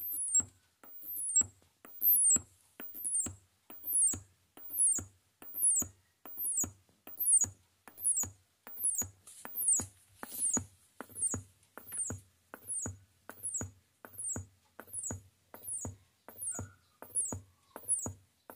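F&D A333U 2.1-channel speaker system putting out weird rhythmic noises instead of music: a short high chirp falling in steps, with clicks and a low hum, repeating a little more than once a second. The regular pulsing is a fault in the system.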